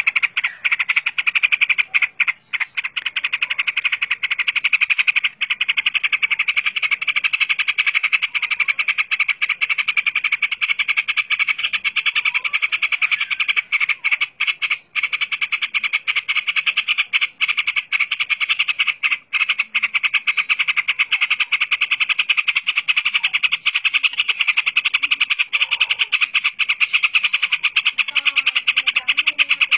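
Yellow-vented bulbul (trucukan) singing a fast, rolling chatter that runs on almost without a break, with only a few short pauses.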